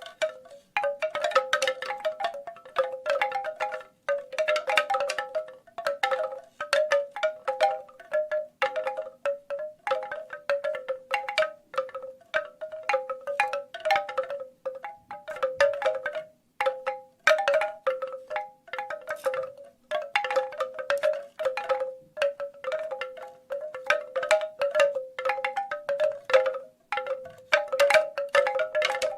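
Bamboo wind chimes knocking together irregularly, hollow clacks with a short pitched ring coming in uneven clusters and brief lulls.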